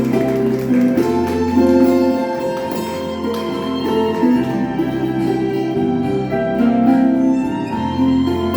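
Instrumental interlude of a slow ballad, with sustained bowed strings over plucked guitar and bass; no singing.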